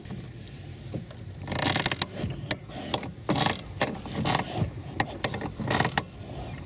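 Lada Granta clutch pedal squeaking and creaking over and over as it is pressed and released. Commonly put down to incorrect clutch adjustment.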